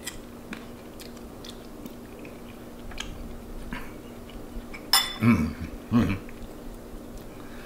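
Metal fork clicking and scraping against a ceramic bowl, with chewing as pasta is tasted. A louder clatter comes about five seconds in, followed by two short low vocal sounds.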